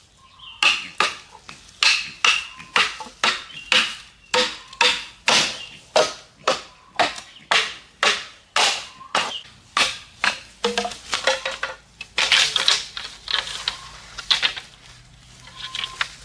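Machete chopping bamboo: a steady run of sharp strokes, about two a second, each with a short hollow ring, then a quicker, denser flurry of hits near the end.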